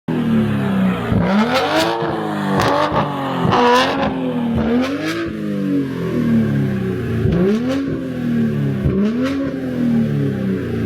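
BMW engine revved in a series of throttle blips, its pitch climbing and falling back about six times, with a few sharp pops between revs. The exhaust has had its silencer removed and a plain pipe put in its place.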